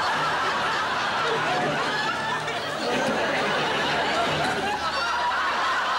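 Studio audience laughing, a steady wash of many voices.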